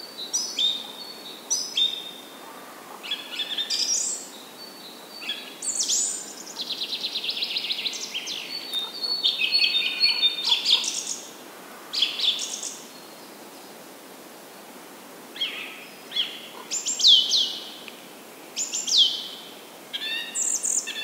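Several songbirds singing and chirping, with a fast trill about a third of the way in and a couple of clear falling whistles near the end, over a steady rush of flooded creek water.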